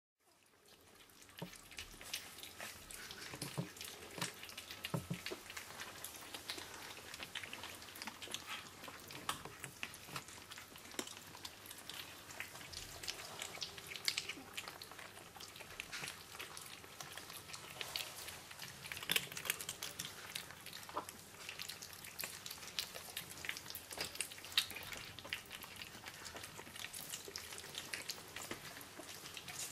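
Several Sphynx kittens eating wet cat food from steel bowls: a dense, irregular run of small wet smacking and chewing clicks, fading in over the first second or so.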